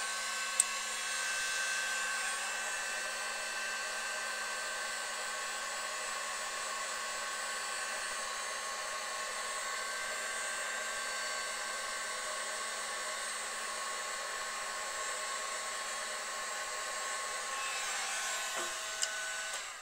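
Electric heat gun blowing steadily, a fan whine over rushing air, as it heats heat-shrink tubing over wire connectors; it switches off right at the end.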